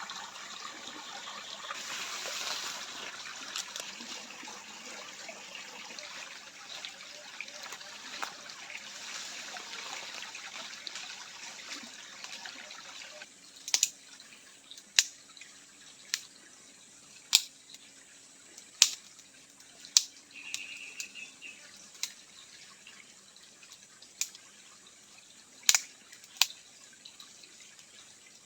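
Water running or trickling steadily, then an abrupt cut to a quieter background with sharp single ticks, roughly one a second, like drops falling.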